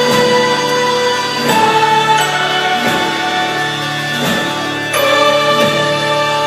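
Slow music of long held, choir-like chords over a steady low note; the chord changes every second or two.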